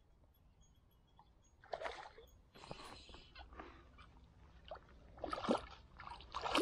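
A hooked chub splashing and thrashing at the water's surface as it is played in on a light lure rod. A series of irregular splashes begins about two seconds in, and the loudest come near the end.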